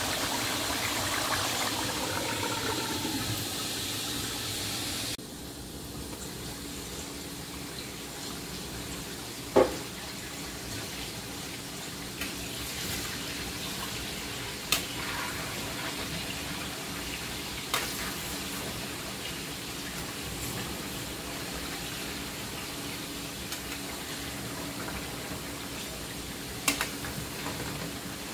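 Chicken fat rendering in a frying pan: a steady bubbling sizzle while the water in it is still cooking off. It drops suddenly in level about five seconds in, and a metal spoon stirring the fat clinks against the pan a few times.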